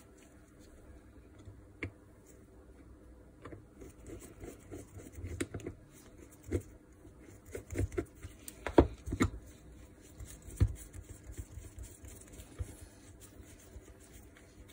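Light clicks and metallic knocks of angle-grinder parts being handled as a nut is run onto the armature shaft in the aluminium gear housing. The taps come irregularly, sparse at first and busier later, with the loudest knocks a little past the middle.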